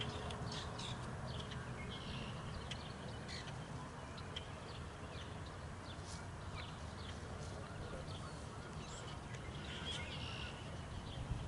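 Birds chirping and calling, with a couple of longer, harsher calls about two seconds in and again near the end, over a steady low background rumble.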